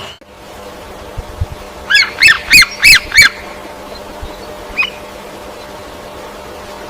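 A bird calling: five loud calls in quick succession about two seconds in, then a single fainter call nearly two seconds later, over a steady background hiss.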